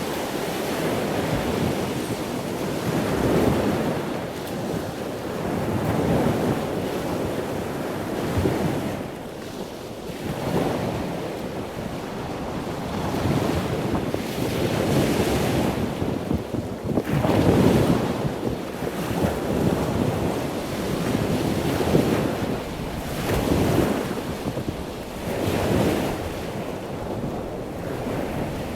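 Ocean waves washing in and out, the surf swelling and fading every couple of seconds.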